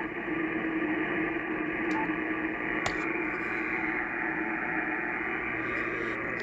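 Power-line noise heard through an HF ham radio receiver's speaker: a steady static noise filling the receiver's narrow audio band, with a steady tone under it. A single click about three seconds in.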